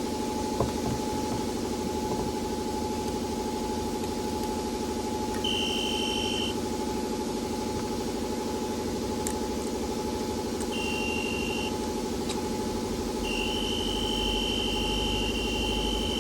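A steady electrical hum, with three high electronic beeps over it: one about five seconds in, a second a few seconds later, and a longer one near the end.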